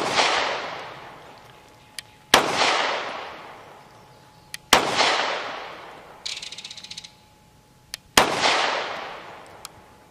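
9mm pistol (Bul Armory Axe C Hatchet) firing 115-grain FMJ in slow, single aimed shots, four in all, about two to three seconds apart. Each shot is followed by a long echo that dies away over about two seconds.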